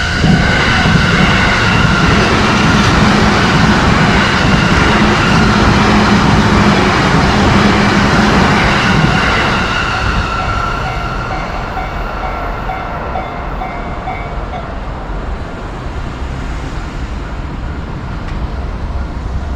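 A Japanese level-crossing warning bell ringing its repeated clang while a train passes. The train's rumble is loudest for the first nine seconds or so, then eases off as the bell keeps ringing.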